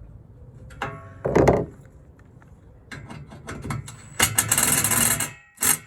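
Tool tightening a bolt on a solar panel mounting foot: scattered metallic clicks and knocks, then a dense ratcheting run about four seconds in and one short burst near the end.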